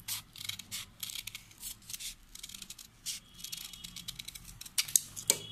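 Large steel tailor's scissors cutting through two folded layers of stiff buckram in a run of short, crisp snips, a few a second, with the sharpest ones near the end.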